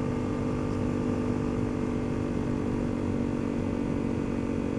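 Honda CRF250L's single-cylinder four-stroke engine running at a steady cruise, an even drone that holds its pitch, with low road and wind rumble beneath.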